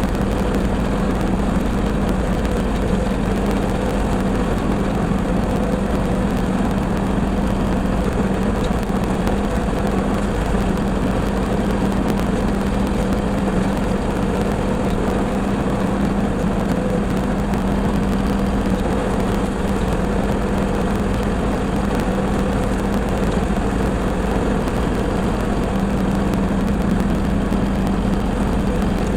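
LS MT240e compact tractor's diesel engine running steadily, driving a brush hog rotary cutter, with a constant hum that does not change in pitch.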